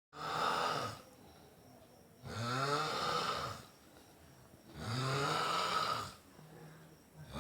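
A person snoring in a steady rhythm: three loud snores about two and a half seconds apart, each lasting just over a second, with a fourth starting near the end.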